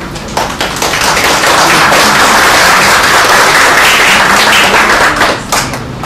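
Audience applauding, swelling up about half a second in and dying away near the end.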